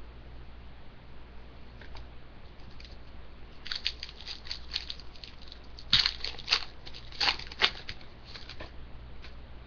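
Hockey card pack wrapper crinkling and tearing open by hand: a run of sharp crackles from about four seconds in until near the end, loudest in the middle.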